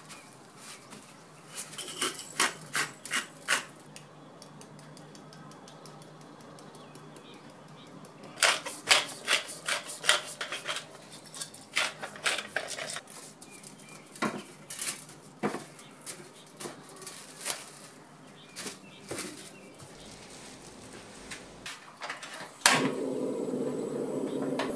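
Runs of rapid sharp clicks and crackles from a pepper grinder seasoning a raw chicken breast. Near the end a stainless steel pan is set down with a clank on an induction cooktop, which then gives a steady hum.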